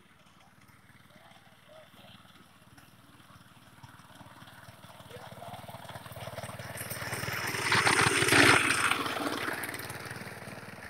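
Small engine of a self-propelled reaper running as the machine cuts through standing crop, growing steadily louder as it comes close, loudest about eight seconds in, then easing off a little.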